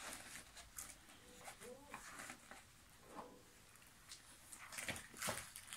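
A few faint, brief vocal sounds from a toddler, and near the end several soft rustles and taps from a large rolled paper poster being handled.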